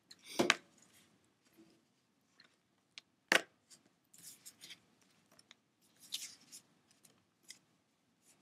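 Short, scratchy strokes of a drawing tool on paper, coming in irregular bursts as the coiled cord is sketched. There is one sharp tap a little over three seconds in.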